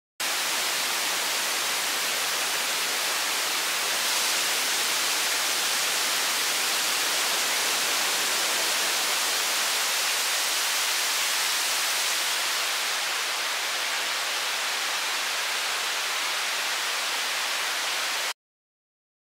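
Steady white-noise hiss played through a band-pass EQ in FL Studio, so it is thin in the bass and bright in the treble. It starts and cuts off abruptly, and the very top of the hiss softens a little about two-thirds of the way through.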